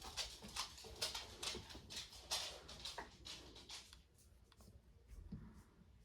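Quick scratchy clicks and scrapes from the plastic parts of an old Nokia phone being handled and worked on, dense for the first few seconds and then sparser and fainter.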